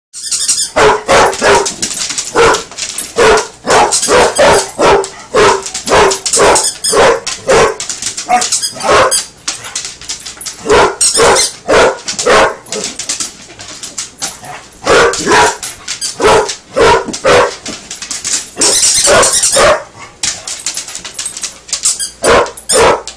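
Basset hound barking in play: loud barks in quick runs, several a second, broken by short pauses.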